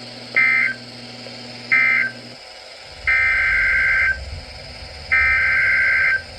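Emergency Alert System SAME digital data bursts, the harsh two-tone squawk: two short end-of-message bursts about 1.3 s apart, then two longer header bursts of about a second each that open the next alert. A low background hum cuts off between them.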